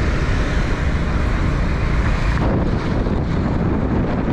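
Wind buffeting the microphone of a moving motor scooter, a steady low rumble of rushing air with road noise underneath.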